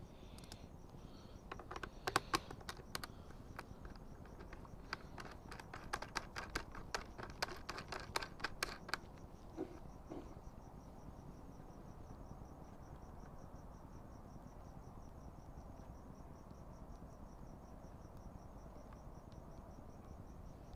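A quick run of light clicks and taps for several seconds, from hands working at a motorcycle helmet's visor pivot plate and screw. After that only faint, steady cricket chirping is left.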